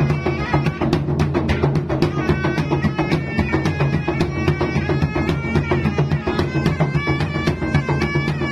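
Traditional gendang drum ensemble playing: fast, dense drum strokes with a hanging bronze gong struck by a padded mallet, over a reedy wind instrument holding sustained notes.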